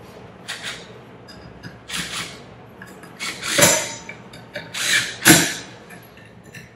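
Cordless drill running the air chamber's bolts down into the metal pump body in four short runs, the later two longer and louder than the first two.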